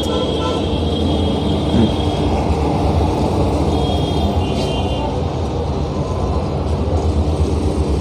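Steady rumble of road traffic, with a thin high tone that sounds for the first couple of seconds and again briefly about four seconds in.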